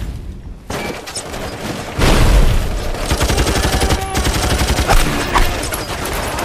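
Battle sound effects: a dense fusillade of rifle and machine-gun fire, with rapid overlapping shots that grow much heavier about two seconds in.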